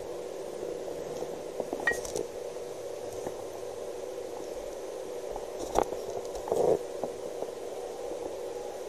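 Steady hiss and hum of a body-worn camera's microphone, with a few brief clicks about two seconds in and again near six seconds, followed by a short rustle of handling noise.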